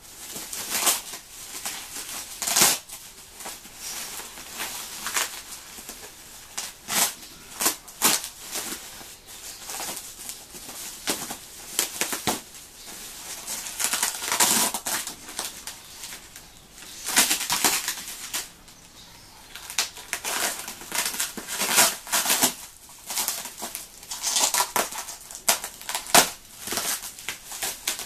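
Bubble wrap and plastic packing rustling and crinkling in irregular bursts as it is handled and pulled away from a packed clock.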